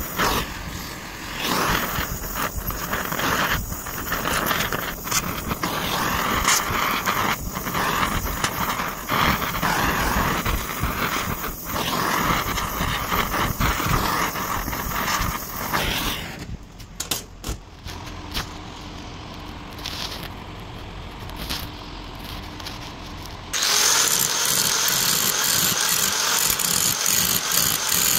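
Welding on a steel gear tooth: a steady crackling sizzle full of fine pops, which stops about sixteen seconds in. After a quieter stretch with scattered ticks, an angle grinder with a flap disc starts suddenly near the end and grinds the gear with a steady, loud noise.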